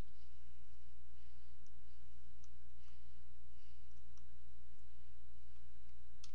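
Faint scattered clicks and light scraping of a small screwdriver working a screw out of a plastic toy, over a steady low hum, with a quick cluster of sharper clicks at the very end.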